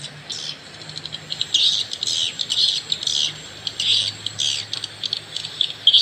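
Recorded swiftlet calls, a lure sound for a swiftlet house, played through a pair of tweeters from a Piro MW-88 call-sound player: rapid high chirps and twitters in irregular clusters, over a faint low hum.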